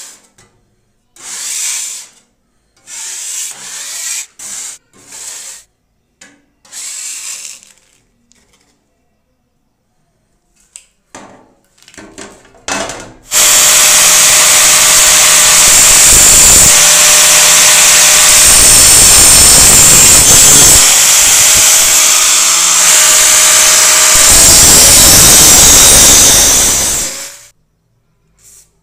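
A metal scraper pushing dried grit off a rusted steel shovel blade in several short scraping strokes. About halfway through, a power tool starts and runs loudly and steadily for about fourteen seconds, then cuts off.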